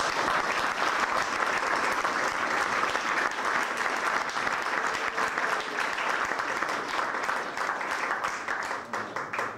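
A roomful of people applauding, dense clapping that dies away near the end.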